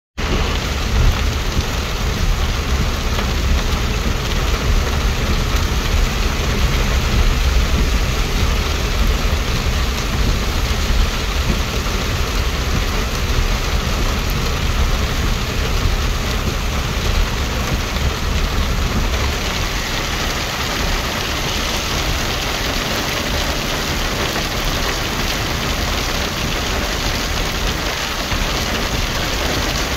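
Heavy rain on a car driving along a wet road, heard from inside the cabin: a steady hiss over a low rumble. About two-thirds of the way through, the low rumble fades and the hiss turns brighter.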